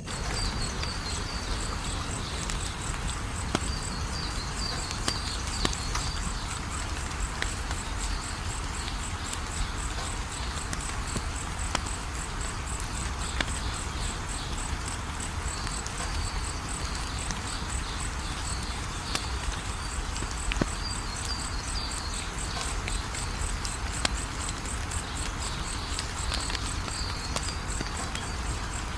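Wood fire crackling in a fireplace, with a steady hiss and scattered sharp pops and snaps. Underneath runs a steady, fast, high-pitched pulsing chirr.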